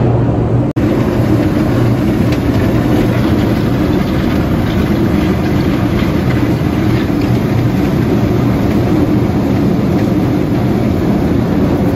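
Grain dump pit conveyor running under a steel grate: a loud, steady mechanical rattle over a constant low hum. Freshly started from the pit's wall switch, it is running normally.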